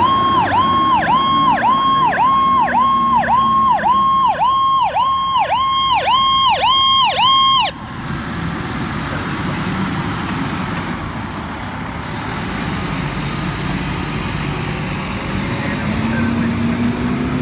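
Fire apparatus electronic siren on a fast warble, sweeping up and down about twice a second, which cuts off suddenly about eight seconds in. After that comes the engine and tyre noise of a fire engine and a ladder truck pulling out and passing close by.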